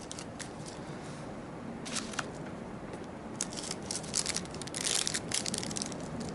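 Faint clicks and rattling from a hard plastic fishing lure with a rattle chamber being handled. The clicks are scattered, with a denser burst of rattling about five seconds in.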